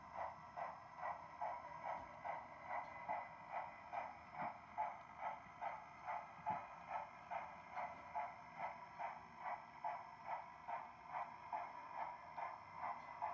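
Sound-equipped On3 model of a D&RGW C-19 steam locomotive playing a steady exhaust chuff, about two and a half chuffs a second, as it moves slowly.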